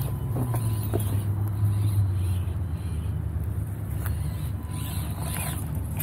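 1/24-scale Axial Deadbolt RC crawler's small electric motor and gears running steadily as it crawls over rocks, with a few light clicks in the first second.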